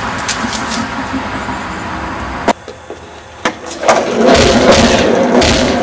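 Skateboard wheels rolling over rough, cracked concrete, a loud rolling noise that starts about four seconds in, after two sharp clicks about a second apart.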